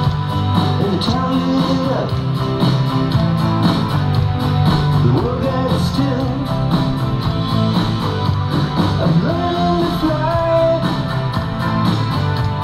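Rock music with guitar over a steady beat, with a singing voice carrying the melody.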